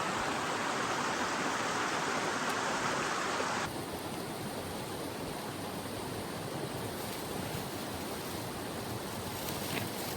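Mountain river rushing, a steady noise that drops suddenly to a softer, duller rush about four seconds in.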